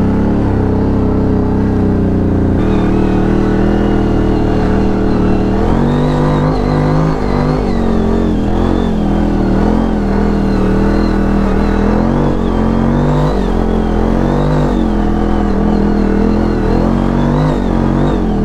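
CFMoto CForce 1000 ATV's V-twin engine running while riding, steady at first, then revving up and down repeatedly from about six seconds in as the throttle is worked.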